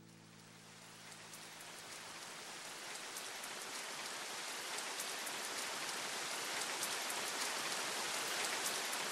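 Steady rain falling, with individual drops ticking through the hiss; it fades in gradually, growing louder throughout.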